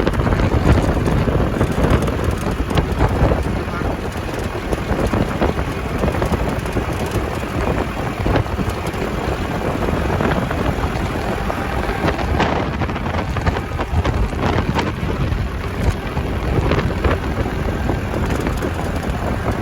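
Strong sandstorm wind blowing hard and buffeting the microphone with a steady, deep rumble and rushing noise.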